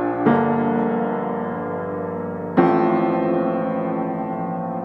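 Background piano music: slow, sustained chords, a new one struck just after the start and another about halfway through, each left to ring and fade.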